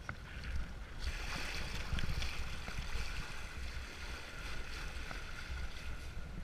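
Kitefoil board hissing and splashing through choppy water as it gets going, the water noise setting in about a second in, over a steady low rumble of wind buffeting the microphone.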